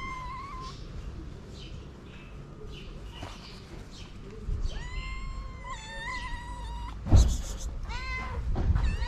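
Stray cats meowing over and over to ask for food: a short meow at the start, two long, drawn-out meows about five to seven seconds in, and a quick run of meows near the end. A loud thump comes about seven seconds in, over low rustling and handling noise.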